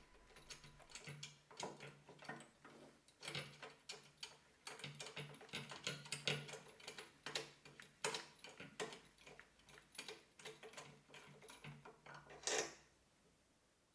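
Faint, irregular small clicks and ticks of metal parts being handled as the drill press's factory depth stop is unscrewed and taken off by hand, with one louder click near the end.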